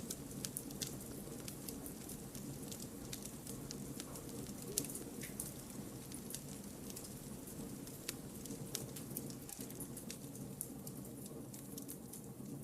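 Wood campfire burning: a steady low rumble with frequent small, sharp crackles and pops at irregular times. One louder pop comes a little under five seconds in.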